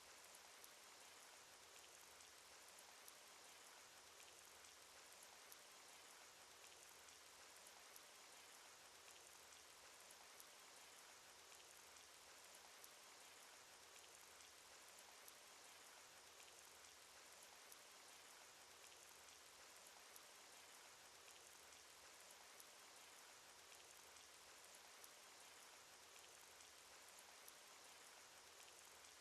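Faint, steady cartoon rain sound effect: an even hiss of rainfall with individual drops ticking through it.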